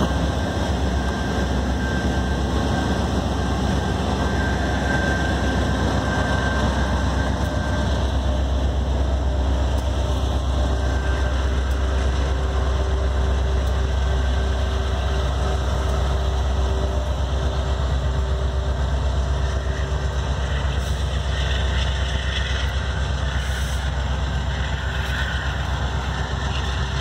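CSX freight diesel locomotives running as the train rolls slowly past, a steady deep rumble with a held whine through the middle.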